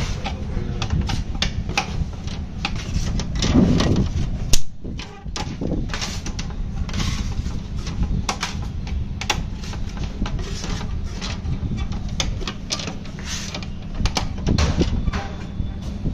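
Screwdriver work and handling of the plastic cover of an MCB distribution box: a run of small clicks and rattles, with one sharp knock about four and a half seconds in.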